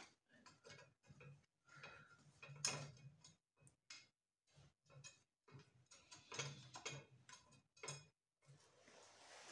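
A nut being spun by hand down a bolt that clamps a steel template plate to a cleaver blank in a vise: faint, irregular metal clicks and short scrapes.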